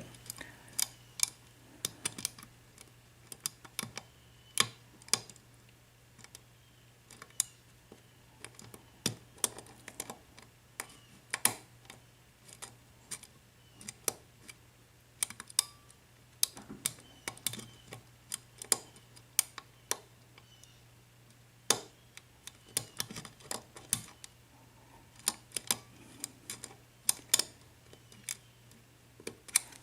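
A lock pick working the pins of a 4-pin Armalite padlock with a Yale keyway, clamped in a vise: irregular sharp metallic clicks and ticks as the pick lifts and drops the pins under tension. A faint low hum runs underneath.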